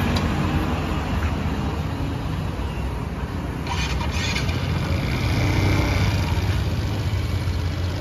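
Street traffic: motorcycle and bus engines running and passing with a steady low rumble. A short hiss comes about four seconds in.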